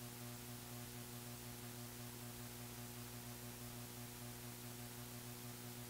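Faint steady electrical mains hum with a light hiss underneath.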